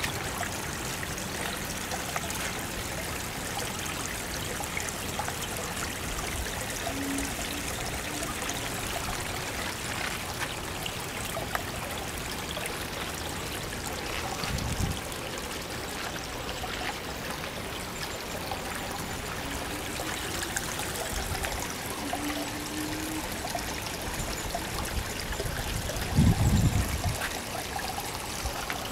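Water trickling and splashing steadily down a small rock waterfall into a backyard koi pond. Two low bumps break in, the louder one near the end.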